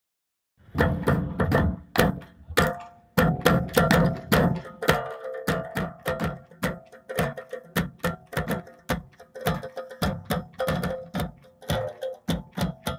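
Drum kit played to music: a quick, steady rhythm of sharp drum hits, with a held melody line under them. It starts about half a second in.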